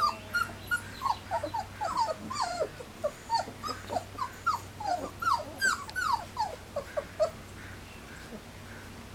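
Three-week-old Standard Poodle puppies whimpering and crying: a quick run of short, high-pitched calls that fall in pitch, several a second, dying away about seven seconds in.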